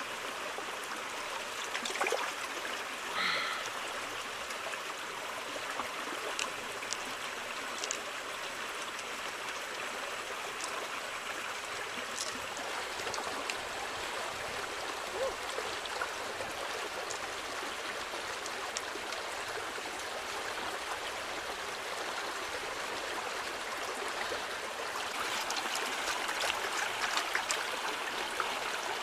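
Shallow stream flowing steadily over stones, with a few faint clicks; the water grows louder near the end.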